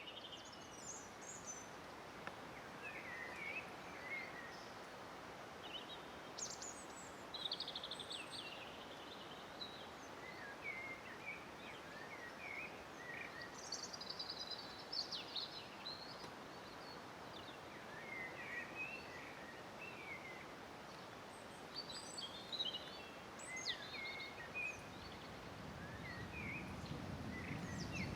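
Wild birds singing, with short chirps and trills scattered throughout, over a steady rushing background noise; a low rumble builds near the end.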